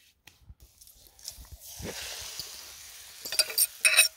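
Beaten egg mixture sizzling as it is poured into a hot pan of fried bacon, a steady hiss that begins about a second in. Near the end comes a quick run of sharp, ringing clinks.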